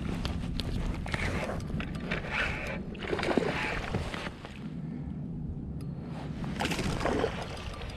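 Water sloshing and splashing against a Hobie Pro-Angler 14 fishing kayak's hull, in a few swishes, the strongest about three and seven seconds in, over a steady low rumble with scattered light clicks.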